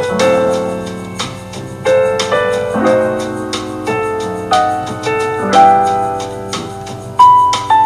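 Background music: a piano playing a relaxed jazz tune, with notes and chords struck every half second or so.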